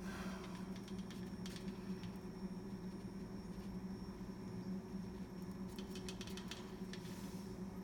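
Faint clicks and light taps from handling a mouse circuit board while working its button switches out and in, over a steady low hum. The clicks come in a small cluster a little past the middle.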